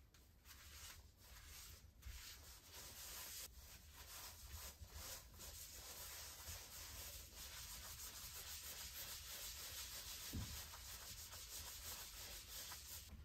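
A paper towel rubbing a paste by hand over the painted face of a wooden platter, faint and steady and growing a little louder from about two seconds in.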